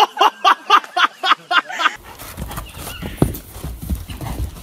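A person laughing hard in quick bursts, about five a second, cut off after about two seconds; then a horse cantering over dirt, its hoofbeats over a low rumble on the microphone, with one sharp click about three seconds in.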